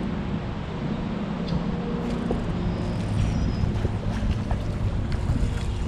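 Wind buffeting the microphone on a fishing boat, a steady low rumble with a faint steady hum underneath and a few small clicks.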